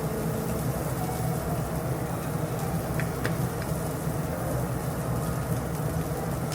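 Steady low rumble of restaurant background noise, with two faint clicks about three seconds in.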